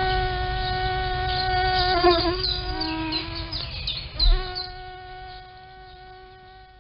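Mosquito whine: a steady high buzzing tone that wavers and dips in pitch in the middle, with a single low thump, then settles again and fades out near the end.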